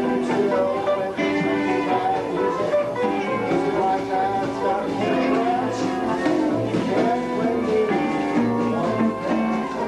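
A live western swing band playing, with a fiddle bowing the lead line over guitar and upright bass accompaniment; the melody has several sliding notes.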